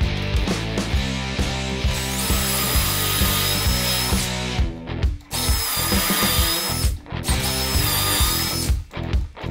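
Cordless drill whining as it bores holes through a drilling jig into a pine board, in three runs of a second or two each. Rock background music plays underneath.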